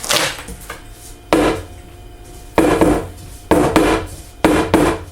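Cut wooden pieces being scraped and slid across the wooden bed of a CNC router as they are taken off: a series of short rough scrapes, several coming in quick pairs.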